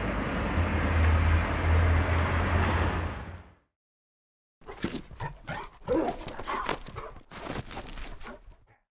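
A steady rumbling noise with a low hum, like a vehicle running, cuts off about three and a half seconds in. After a second's pause, a dog plays, with short whines and yelps among scuffling clicks.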